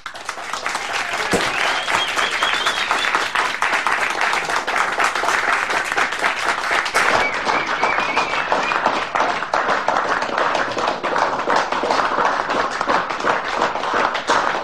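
Applause from a crowd of many people clapping, swelling up in the first second, then holding steady before cutting off suddenly at the end.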